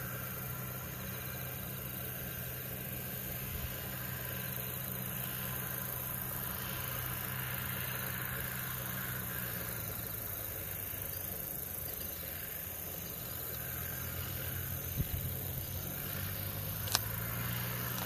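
Steady low hum of an idling engine, with one faint sharp click near the end.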